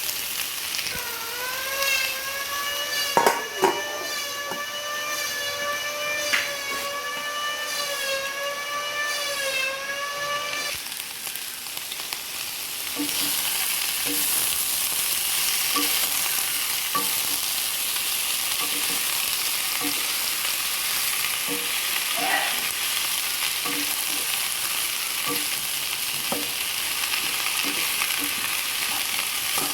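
Tofu and cabbage sizzling as they stir-fry in a pan, with a spatula tapping and scraping against it in a regular rhythm. For about the first ten seconds a wavering, whistle-like tone sounds over it, and there are a couple of sharp knocks a few seconds in. The sizzling grows louder and steadier from about thirteen seconds on.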